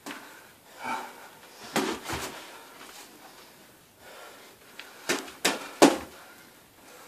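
Boxing gloves thudding as sparring punches land: a pair of hits about two seconds in and a quick run of three about five seconds in.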